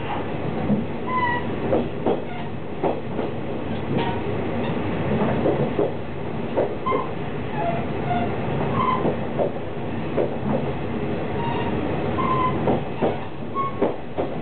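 KiHa 48 diesel railcar running along the line, heard from inside a middle car: a steady rumble of engine and bogies, with frequent irregular knocks of the wheels over rail joints and brief high squeaks from the wheels.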